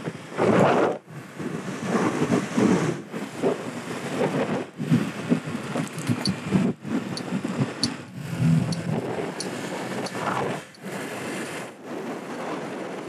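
A 50cc motor scooter's small engine buzzes along at riding speed, mixed with wind noise on the microphone. The sound drops out sharply for an instant several times.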